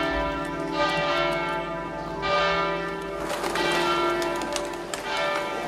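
Church bells ringing: a series of strikes about a second apart, each tone ringing on and overlapping the next.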